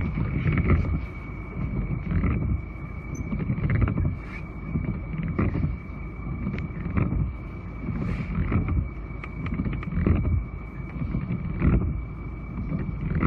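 Wind buffeting a phone's microphone: a low, uneven rumble that swells and fades every second or so, with a few faint handling clicks. A thin, steady high-pitched tone runs underneath throughout.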